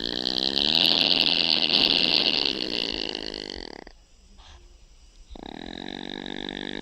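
Opossum snoring: one long snore lasting about four seconds, a pause of about a second and a half, then the next snore beginning.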